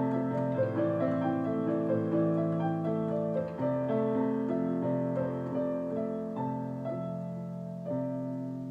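Piano music: slow, held chords and melody notes that gradually fade toward the end.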